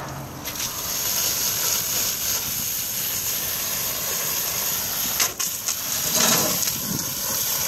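Water spraying hard from a hose nozzle against the slotted stainless steel screen of a Vactor 2100 micro strainer, a steady hiss washing packed dirt and debris off the screen. The spray starts about half a second in and dips briefly about five seconds in.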